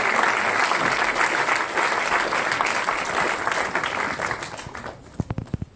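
Cinema audience applauding, a dense patter of many hands clapping. It thins out about four seconds in and ends with a few last scattered claps.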